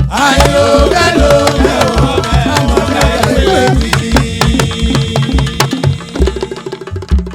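Instrumental outro of a Yoruba praise song: hand drums keep a steady beat under melodic lines, and the music tails off near the end.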